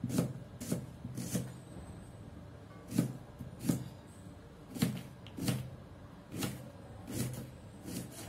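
Kitchen knife slicing an onion on a cutting board: a run of sharp knocks as the blade hits the board, roughly one every half second to a second, with a short pause about two seconds in.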